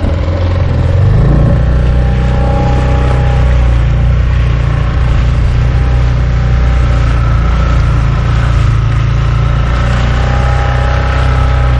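Dinghy outboard motor running steadily under way, with hull and water noise. The engine note picks up slightly about a second in.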